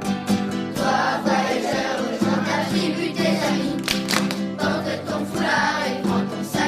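Background music: a song with a group of voices singing over instruments. The voices come in about a second in.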